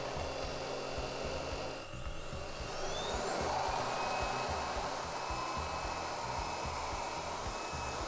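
Xiaomi Roidmi F8 cordless stick vacuum with its powered brush head running steadily while it vacuums sand off laminate. About two seconds in the sound dips, then winds up with a rising whine as the motor comes up to its higher suction setting (130 W).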